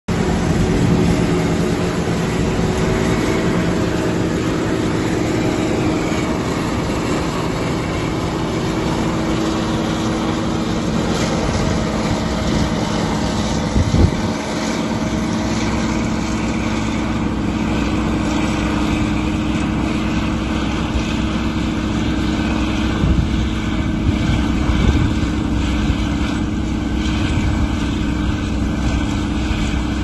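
Self-propelled forage harvester and tractor running steadily as the harvester chops maize for silage: a loud, even engine drone with a steady hum. A single sharp knock about 14 seconds in.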